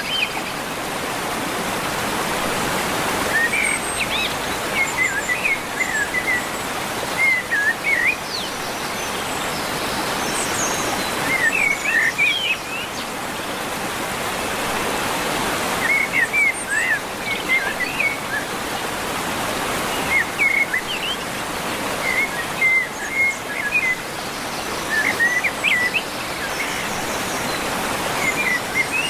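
Songbirds chirping in short, twittering phrases every few seconds over a steady rushing hiss.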